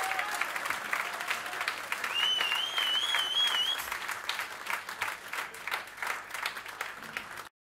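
Concert audience applauding and cheering at the end of a song, with a warbling high whistle from the crowd about two seconds in. The applause thins out and then cuts off abruptly near the end.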